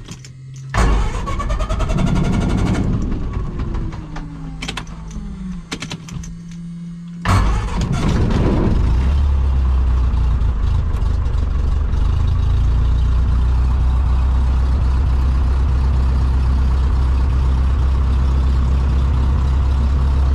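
Cessna 152's Lycoming O-235 four-cylinder engine starting up. A first burst about a second in dies away over a couple of seconds; at about seven seconds the engine fires and settles into a steady idle.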